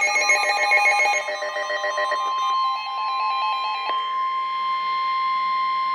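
Several weather radios alarming at once: rapid electronic beeping in several pitches over the long steady warning alarm tone of NOAA Weather Radio. The beeping stops about four seconds in, leaving the steady tone, which signals that a warning broadcast is about to follow.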